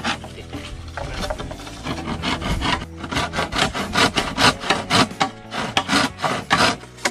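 A blade sawing back and forth through a bamboo pole, a rasping scrape on each stroke. The strokes grow louder and quicker about halfway through, reaching about three a second.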